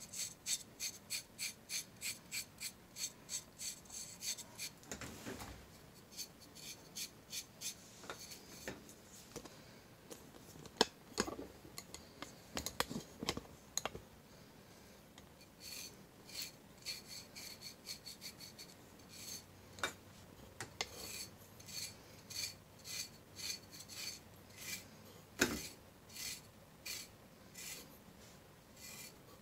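A blade scraping dry, thick psoriasis plaques on the skin of the lower leg: rhythmic rasping strokes at about three a second. The strokes break off for several seconds in the middle, with a few clicks and knocks, then resume. Near the end there is a single sharper knock.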